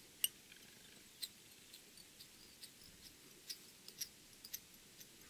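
Faint, irregular small ticks and clicks of thread and bobbin handling as turns of fly-tying thread are wrapped over a rabbit zonker strip on the hook shank, the sharpest tick about a quarter-second in.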